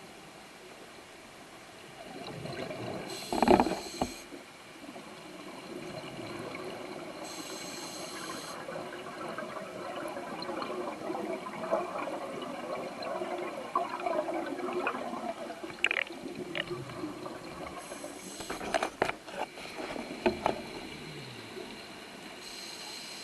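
Scuba diver's regulator heard underwater: breaths drawn in with short hisses and breathed out in rushing, gurgling bubbles, the loudest bubble bursts about three seconds in and again near the end.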